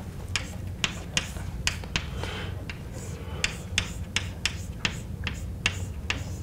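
Chalk writing on a blackboard: sharp taps and short scratchy strokes, about two a second, over a steady low hum.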